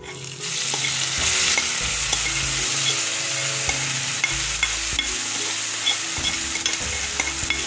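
Ridge gourd and telagapindi curry landing in a kadai of hot oil tempering and frying with a steady sizzle, which swells a moment in. A spoon scrapes the mixture in from the other pan with light ticks against the metal.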